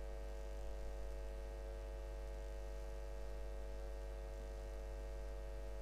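Steady electrical hum with many even overtones and a faint hiss, unchanging throughout.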